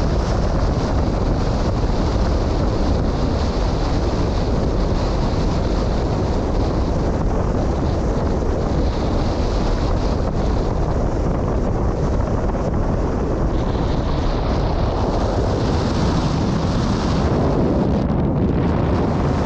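Strong wind blowing across the microphone, a steady low noise that does not let up.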